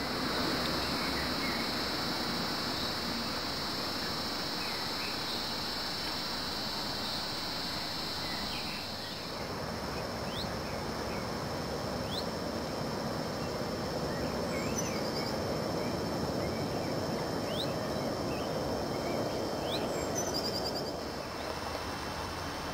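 Riverside outdoor ambience: small birds give scattered short chirps and calls over a steady rushing background noise. A high steady whine runs underneath until about nine seconds in, and a quick run of repeated high notes sounds twice in the second half.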